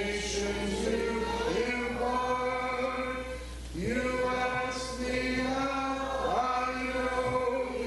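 Church congregation singing a slow hymn together, holding long notes, with a short breath between phrases about three and a half seconds in.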